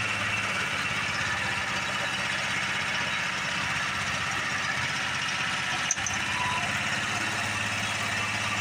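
Small gas engine powering a homemade lathe, idling steadily while throttled down to a slow speed. A single sharp click about six seconds in.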